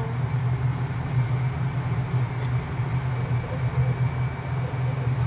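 Steady low hum of a running kitchen appliance with a faint high whine above it, unchanging throughout.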